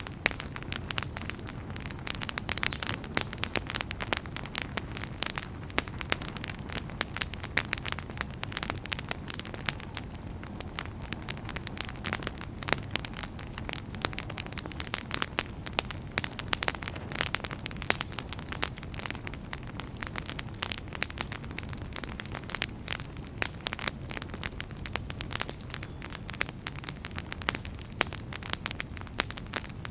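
Wood fire burning in a fireplace, crackling continually with many sharp irregular pops and snaps over a low steady rumble of flames.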